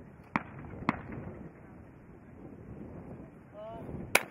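Shotgun fire on a trap range: two shots about half a second apart, a shooter's over-and-under firing both barrels at one clay target. Near the end a short rising call is followed by a single, louder shot.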